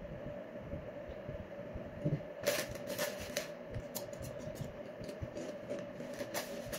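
Crisps being eaten from a packet: the packet crackles and the crisps crunch in a run of sharp clicks starting about two and a half seconds in. A steady hum runs underneath.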